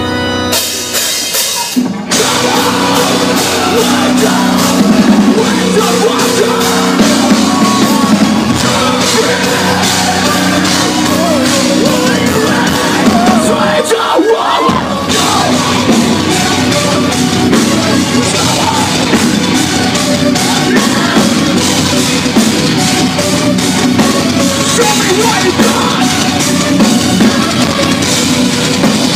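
Live metalcore band with electronic synths playing loud: pounding drum kit, distorted bass and guitar and shouted vocals, heard from within the crowd. The full band comes in about two seconds in, and the low end drops out for a moment about halfway through before the band crashes back in.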